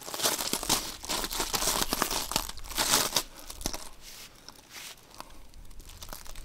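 Firewood being split and handled with a hatchet on a chopping block: a run of knocks and the crackle and tearing of wood, mixed with boots crunching on gravel, quieting down about two-thirds of the way through.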